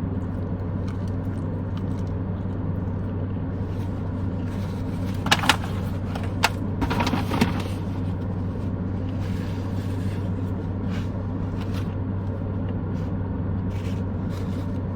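Steady low hum of a car idling, heard from inside the cabin, with a few brief clicks about five to seven and a half seconds in.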